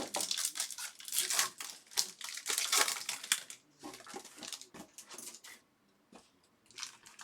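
Crinkling and tearing of a baseball card pack wrapper, with cards rustling as they are handled: a quick run of short scratchy sounds that pauses briefly about six seconds in.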